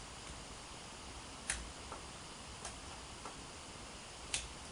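Lock pick working the pins of a 7-pin Best interchangeable-core padlock, giving about five small sharp clicks at uneven intervals, the loudest near the end, as the pins are picked to the control shear line.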